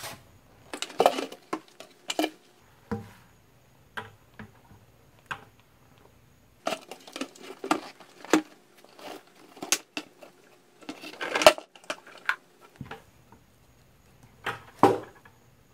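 Irregular clicks, knocks and scrapes of hard plastic: a wet/dry vacuum power head and five-gallon plastic buckets being handled and the head lifted off its bucket.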